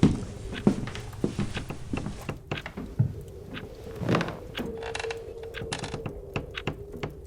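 A run of irregular knocks and clicks, several a second, over a steady hum.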